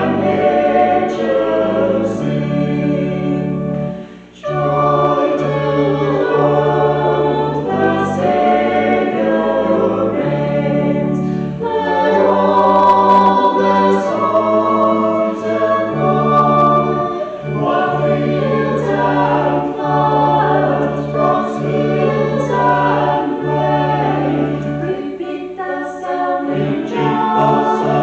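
Choir singing a hymn over long sustained low accompaniment notes, with a brief break between phrases about four seconds in.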